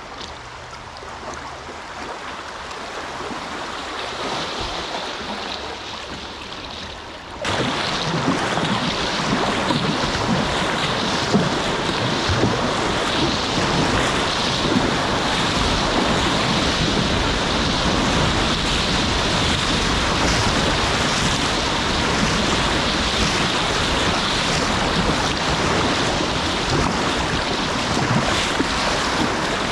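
Rushing, splashing water of a river swollen by high water around a packraft, with wind buffeting the microphone. About seven seconds in it turns suddenly louder and then stays steady.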